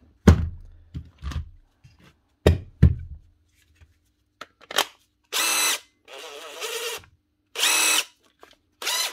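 A few knocks of cordless tools and a battery set down on a bench, then a battery clicking into a DeWalt 18V XR brushless impact driver. Its motor is then run in four short trigger pulls of under a second each, two loud whining bursts with a quieter, rougher run between them. The driver is not running right: the owner hears something binding up inside.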